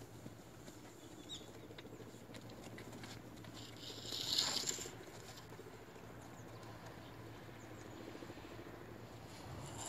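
A horse cantering on sand, its hoofbeats soft and rhythmic, with a brief, louder hissing swish about four seconds in.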